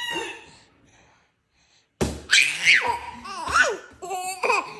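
A baby laughing and squealing in repeated high-pitched bursts, starting about halfway in after a short quiet pause.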